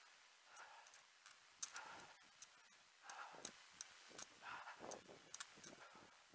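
Faint sounds of a runner on a hill: hard breathing about every second or so, with scattered light ticks and clicks.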